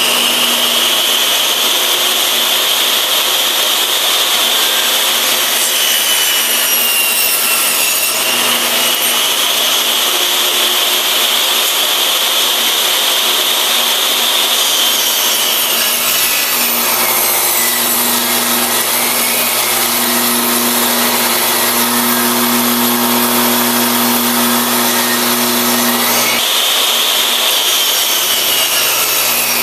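Table saw with its blade tilted about 11 degrees, running continuously and cutting a raised-panel bevel in wood. The high blade whine sags in pitch several times as the blade loads in the cut and recovers as it frees up, jumping back up sharply near the end.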